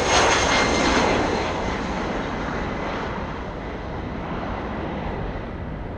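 Jet engines of an Air France Airbus A319 airliner going past, loudest in the first second and then slowly fading as it moves away.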